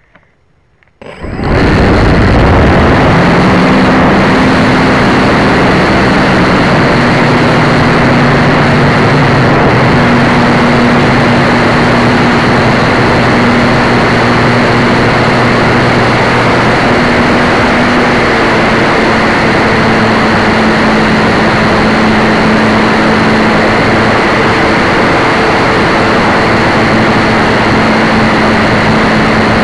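RC airplane motor and propeller, heard close up from a keychain camera mounted on the plane. The motor comes up to full power suddenly about a second in and runs loud and steady, with only small shifts in pitch.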